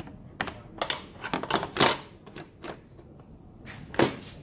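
A run of irregular sharp clicks and knocks, the loudest about two seconds in and another near the end.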